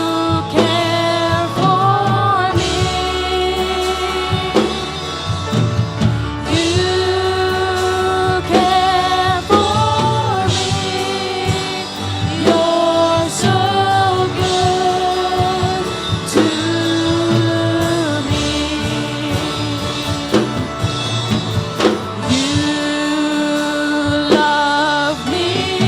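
A worship song: a voice sings long held notes, sliding into each one, over steady instrumental accompaniment.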